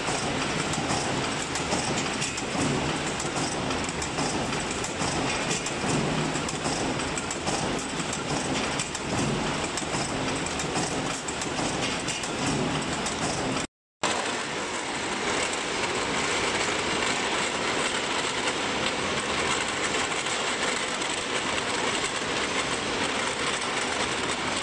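Steel-ball hot rolling mill running, a continuous dense clatter of metal as a red-hot steel bar is rolled into balls. After a brief break about halfway, a steadier rattling noise of a ball grinding machine with steel balls churning in its trough.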